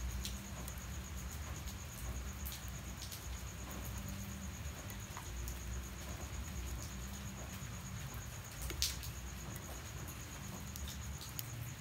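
A cricket trilling steadily in a high, pulsing tone over light rain, with scattered drops tapping and one louder tap about three-quarters of the way through.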